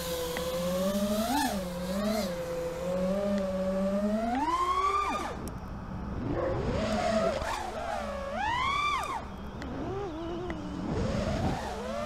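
FPV freestyle quadcopter's brushless motors whining, the pitch rising and falling with the throttle. Twice, about five and nine seconds in, the pitch climbs steeply and then drops sharply as the throttle is chopped.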